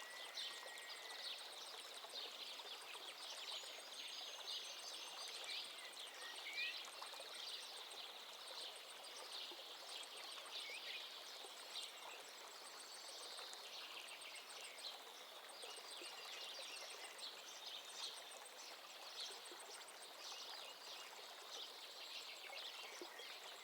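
Faint nature ambience of running water, with a few short bird chirps and a fine, high insect trill.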